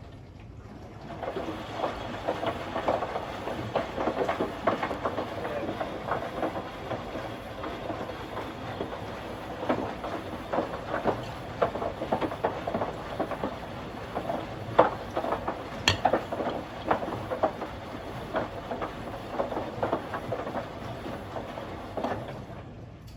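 Indesit My Time washing machine drum turning during its Auto Clean cycle, with water sloshing and irregular knocks. It starts about a second in and stops near the end.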